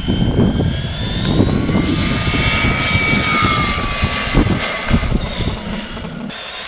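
High-pitched whine of a 1:6 RC BMW M3's brushless motor and drivetrain running at speed, rising in pitch over the first couple of seconds and then holding steady. An uneven low rumble sits underneath and drops away near the end.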